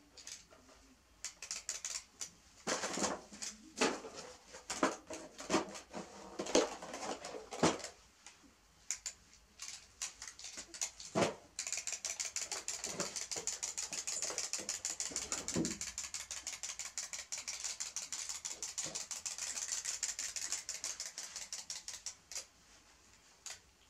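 Wind-up toy chick's clockwork mechanism running: a rapid, even clicking that starts about halfway through and stops after about ten seconds. Before it come scattered clicks and short pitched sounds.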